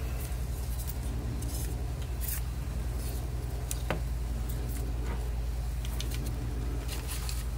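Handling noise from a plastic pistol crossbow being turned over in the hands: scattered light clicks and rustles, with one sharper click about four seconds in, over a steady low hum.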